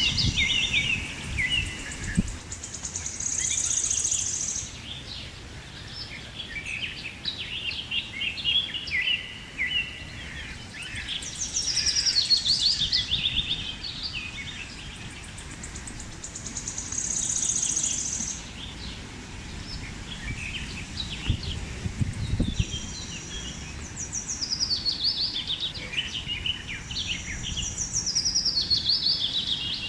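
Birds singing, a phrase of quick falling chirps every few seconds, over a steady outdoor background, with gusts of wind buffeting the microphone at the start and again about two-thirds of the way through.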